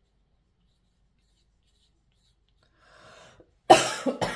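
Felt-tip pen writing on a sheet of paper: almost nothing is heard at first, then faint scratching about three seconds in, and a short, louder scratch near the end.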